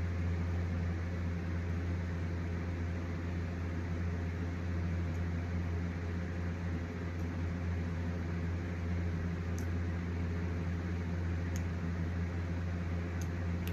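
Steady low motor hum with a hiss over it, like a fan running, holding level throughout, with a few faint ticks.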